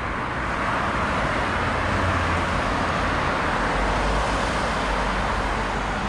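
Steady rush of nearby road traffic, the tyres and engines of passing cars, with a deeper rumble in the second half.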